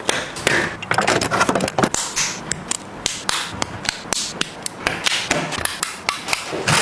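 Plastic Lego bricks clicking as they are pressed together and handled: a fast, irregular run of sharp clicks and taps.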